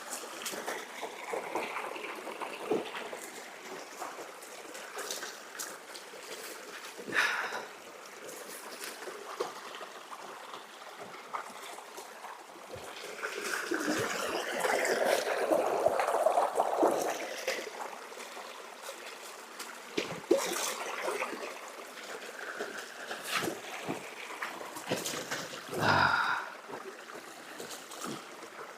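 Water trickling and gurgling, with scattered short clicks and knocks, growing louder for a few seconds in the middle.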